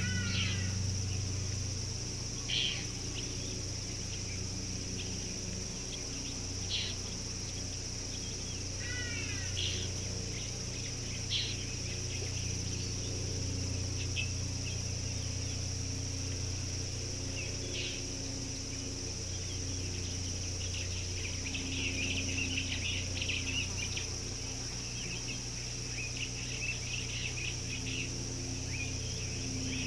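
Outdoor bush ambience: wild birds giving scattered short chirps and calls, busier with a flurry of chirping about two-thirds of the way through, over a steady high insect buzz and a low steady hum.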